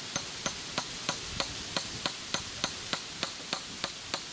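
A hand tool striking wood in quick, even blows, about three a second, some fourteen strikes in all.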